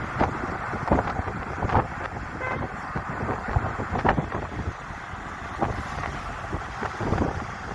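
Road noise of a moving car with irregular wind thumps on the microphone, and a short horn toot about two and a half seconds in.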